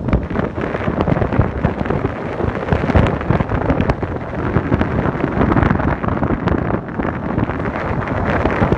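Wind buffeting the microphone over the road noise of a moving vehicle, loud and gusting unevenly.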